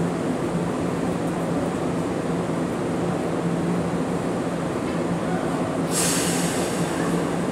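Tokyu 8500 series electric train standing at an underground platform with a steady low hum. About six seconds in, a sudden loud hiss of air starts, the brakes releasing just before the train pulls away.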